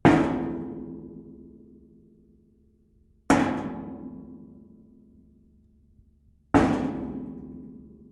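A thin metal sheet struck hard three times, about three seconds apart. Each bang has a metallic ring that dies away slowly over about three seconds.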